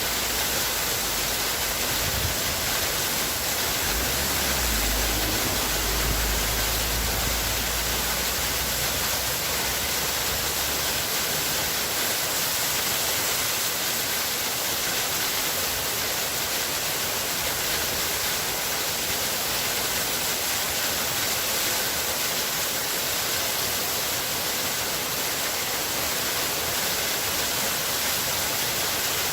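Waterfall: a steady, even rush of falling water, with a low rumble in the first ten seconds or so that then fades.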